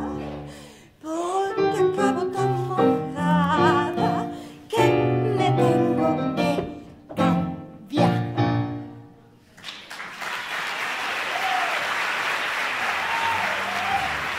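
A woman singing with strong vibrato over piano accompaniment through the song's closing phrases, the last one ending about nine and a half seconds in. Then an audience applauds steadily, with a few shouts through it.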